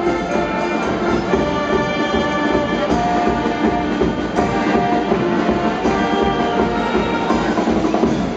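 Brass band (banda) playing in the arena, with many held brass notes sounding together.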